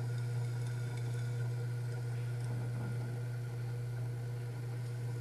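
Steady low electrical hum with faint background hiss, unchanging throughout.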